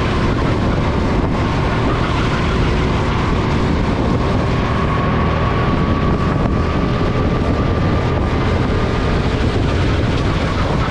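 SODI RT10 go-kart's engine running at speed, heard from an onboard camera, with heavy wind noise on the microphone. The engine note rises gently through the middle and then eases.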